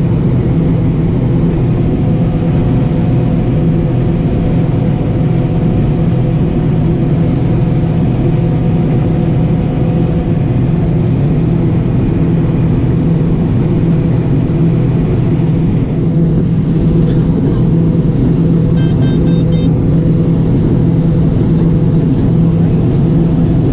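John Deere 9570 combine running steadily while harvesting corn, a loud even drone of engine and threshing machinery. The high hiss drops off about two thirds of the way through, and a few short high tones sound soon after.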